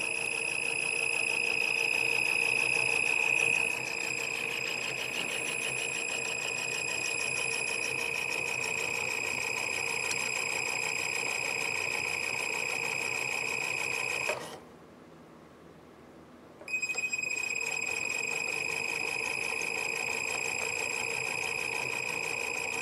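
Electronic speed controller of an RC model squealing with a steady high-pitched whine while it drives the small motor turning the model engine's fan and belt-driven pulleys. About two-thirds of the way through it cuts out for about two seconds, then starts again.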